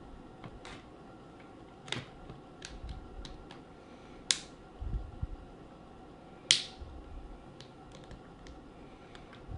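Plastic screen bezel of an Acer Aspire One netbook being pried off by fingernails: scattered small plastic clicks, with two sharp snaps about four and six and a half seconds in as its latches come undone.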